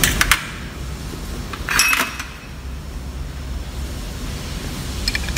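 Light metallic clicks and clinks of steel parts on a PE inline diesel injection pump being worked by hand while its tappets are pinned: a couple right at the start, a cluster about two seconds in, and a few more near the end, over a low steady hum.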